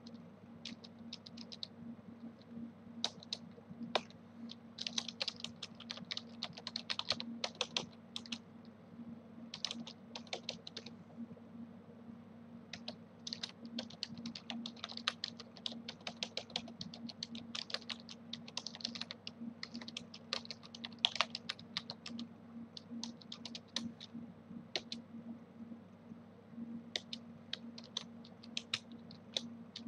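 Computer keyboard typing: quick runs of keystrokes with short pauses between them, over a steady low hum.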